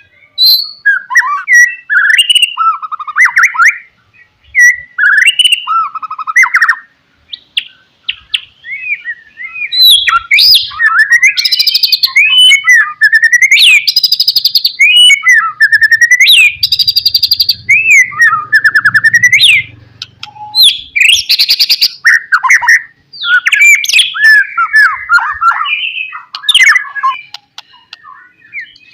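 White-rumped shama (murai batu) singing a long, varied song of loud whistled phrases and trills, with brief pauses between phrases and a stretch of fast rapid-fire repeated notes in the middle.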